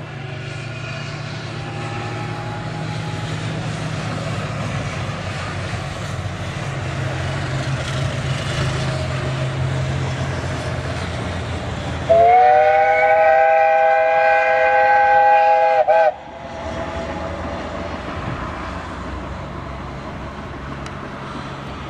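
Steam whistle of the metre-gauge Mallet tank locomotive 99 5902 giving one long blast about twelve seconds in, lasting about four seconds, rising in pitch as it opens and wavering just before it cuts off sharply. Before and after it, a steady low rumble as the locomotive runs light.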